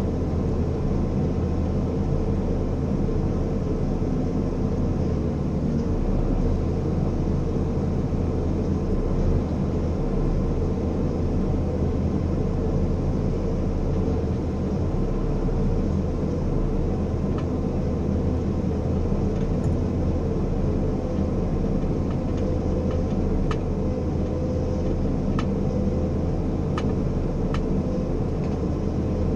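Ponsse forestry harvester's diesel engine running steadily, heard from inside the cab, with a few sharp clicks in the second half.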